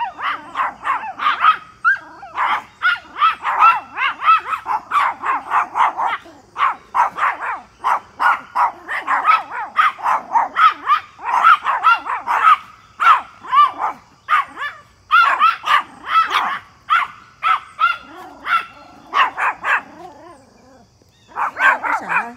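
Several Pomeranians barking at a deer: fast, high-pitched yappy barks, several a second and often overlapping, with a short lull near the end.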